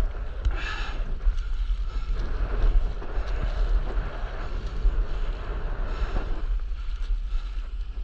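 Wind buffeting the microphone as a steady low rumble, over sea water sloshing and splashing around a stand-up paddleboard moving through small choppy waves, with a few louder splashes.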